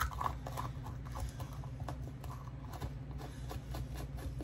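Light, irregular taps and clicks of small paint jars and brushes being handled on a workbench, over a steady low hum.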